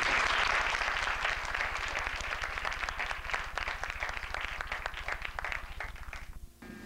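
Audience applauding, starting suddenly and loud as the performers bow, then tapering off over several seconds before cutting off shortly before the end.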